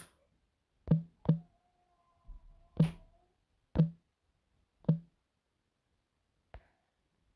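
Taps on a phone's on-screen keyboard while a search is typed, one short click per key. There are six taps spaced roughly a second apart, and the last is faint.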